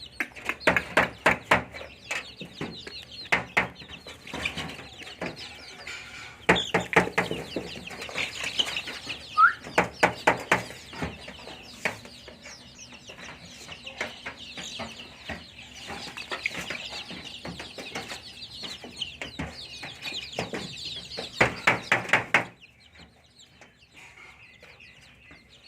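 A flock of young local chickens, chicks about 22 days old, peeping and cheeping continuously, mixed with repeated bursts of rapid sharp taps. The sound drops off abruptly near the end, leaving fainter peeping.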